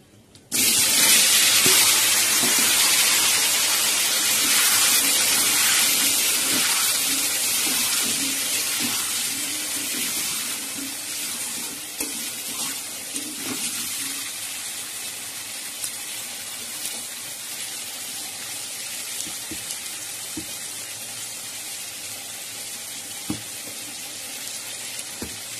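Potato pieces tipped into hot oil with cumin seeds in a wok: a loud sizzle starts suddenly about half a second in and slowly dies down as they fry. A few light knocks of a spatula stirring them come through it.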